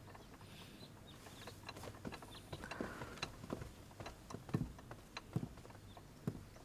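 Faint, irregular soft clicks and taps, with a few louder knocks in the second half.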